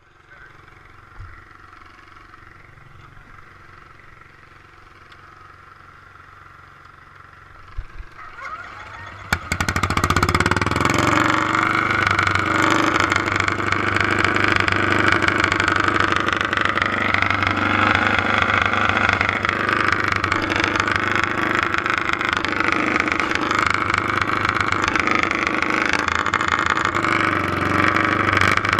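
Garden pulling tractor's engine: a few faint knocks, then it fires about nine seconds in with a sudden loud start and keeps running loud, its pitch wavering a little as it is revved.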